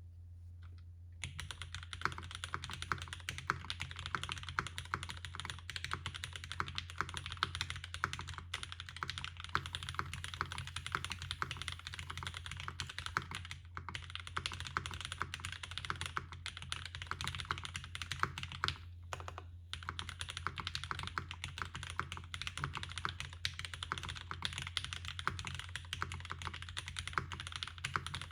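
Fast continuous typing on a Mode 80 mechanical keyboard with lubed Mode Reflex linear switches, an FR4 plate and blank ABS Cherry-profile keycaps. Dense rapid keystrokes begin about a second in, with a couple of brief pauses.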